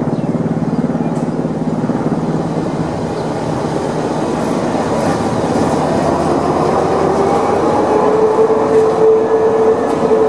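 Electric railcar of the Pilatus cogwheel railway running along its rack track. Steady running noise carries a motor whine that rises slightly in pitch and then holds steady, growing louder toward the end.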